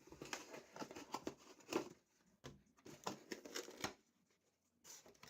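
A package being opened by hand: irregular rustling, crackling and scraping of the packaging, in quick short strokes that pause about four seconds in and pick up again near the end.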